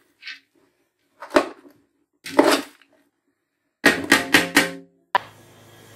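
A metal spoon knocking and scraping against a large metal cooking pot while stirring chopped waterleaf and meat: single knocks about one and a half and two and a half seconds in, then a quick run of four knocks near four seconds that ring briefly. From about five seconds in a steady low hum with a faint hiss takes over.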